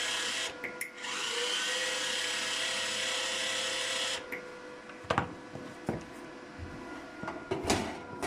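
The wire-feed motor of a TexAC TA-00-622 inverter MIG welder whirring with a hiss, run twice: a short burst, then a run of about three seconds, each rising in pitch as it spins up. After it stops come a few scattered clicks and knocks.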